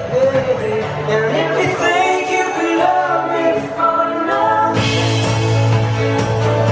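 Live acoustic band: strummed acoustic guitars with a man singing. Near the end the playing gets fuller, with a steady low note underneath.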